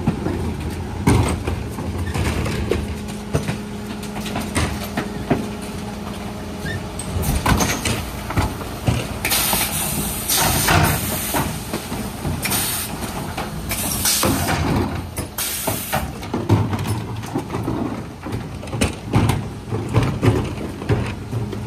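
Refuse truck's Zoeller bin lifter tipping wheelie bins into the rear hopper of a Faun Variopress body on a Mercedes Econic. The truck's engine and hydraulics run with a steady hum through the first part, there are repeated clanks and knocks of the bins against the lifter, and there are several bursts of hiss near the middle as the bins are emptied.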